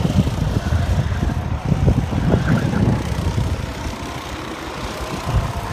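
Go-kart engines running as karts drive around the track and away, the sound dropping off about four seconds in.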